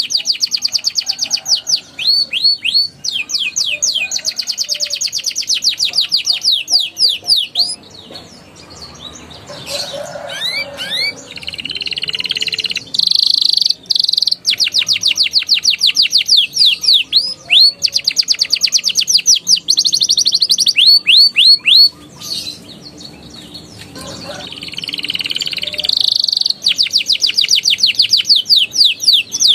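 Young domestic canary singing: long phrases of fast, repeated high sweeping notes and rolling trills, with short pauses about eight and twenty-two seconds in.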